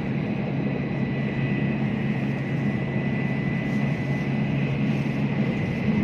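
Steady interior running noise of a Shinkansen bullet train at speed: an even low rumble with a faint constant high-pitched tone over it.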